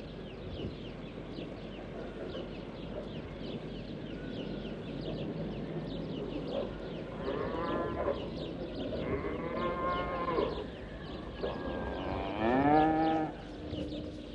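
A farm animal calling three times with drawn-out, wavering calls in the second half, the last the loudest, over continual chirping of small birds.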